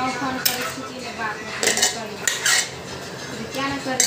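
Stainless steel plates and bowls clinking and knocking together, several separate sharp clinks.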